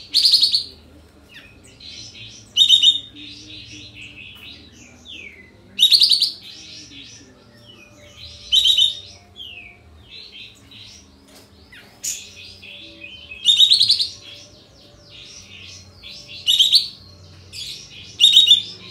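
A caged kapas tembak bulbul singing: loud, sharp, explosive calls roughly every two to three seconds, the 'nembak' (shooting) calls, with quieter chattering and short up-slurred notes in between.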